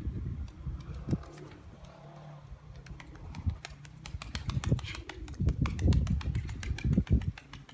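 Nikolaev pigeons cooing, with many sharp clicks and several loud low thumps in the second half.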